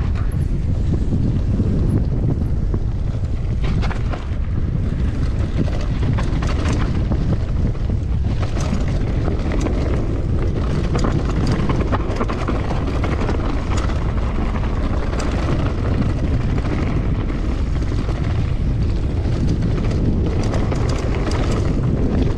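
Mountain bike descending a rough dirt singletrack: wind buffeting the microphone over tyre rumble, with frequent knocks and rattles of the bike over bumps.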